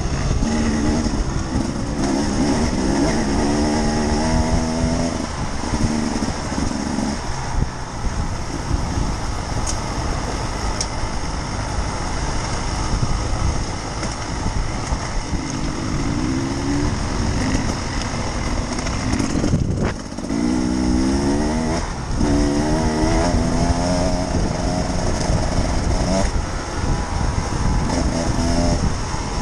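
Enduro motorcycle engine on the rider's own bike, revving up and easing off again and again as it is ridden along a dirt track, over a steady rushing noise.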